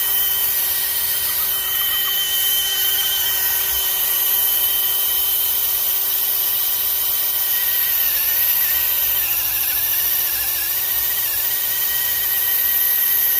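DeWalt DCD996 20V brushless cordless hammer drill running continuously at a lower speed setting while boring with a large bit. The motor whine is steady, sagging a little in pitch partway through as the bit loads up, and the bit ends up buried in the work.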